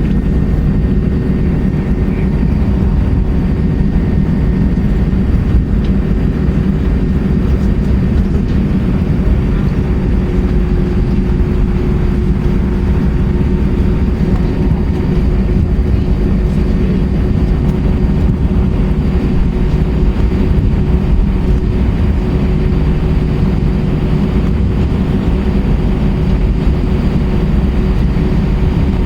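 Airbus A320-232's IAE V2500 turbofan engines running steadily, heard inside the passenger cabin as an even, loud low rumble with a constant hum.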